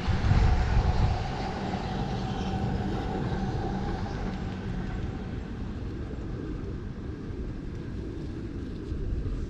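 Steady low rumble of a passing vehicle, with faint steady tones that fade out over the first few seconds, after loud low rubbing noise in the first second.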